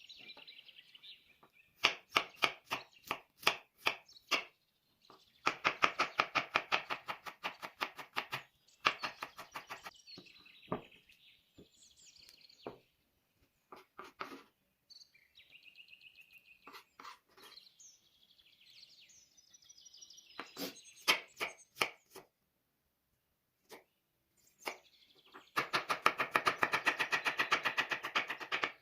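Knife chopping fast on a cutting board, in runs of quick even strokes, loudest in a long run near the middle and another near the end. Birds chirp in the quieter stretches between.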